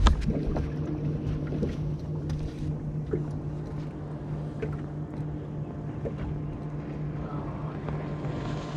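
Steady low hum from a bass boat sitting on the water, with wind and water noise and scattered light ticks.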